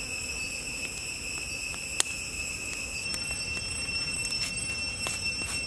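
Insects droning in one steady high tone, with scattered sharp clicks and a single louder snap about two seconds in.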